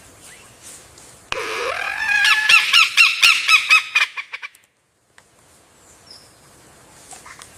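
Lyrebird singing: about a second in, a loud phrase starts with a low swooping note and runs into a fast string of repeated chirps, about five a second, which cuts off abruptly near the middle. Faint bird calls before and after.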